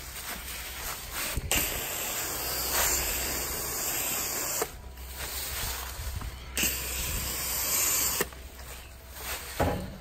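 Coil gun spraying foaming coil cleaner onto a condenser coil in two long hissing blasts, the first about a second and a half in and lasting about three seconds, the second shorter, near the end.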